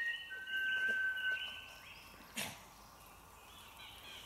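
A person whistling to call a dog: two long held notes, the second a little lower and held for over a second. About two seconds in there is a single sharp knock.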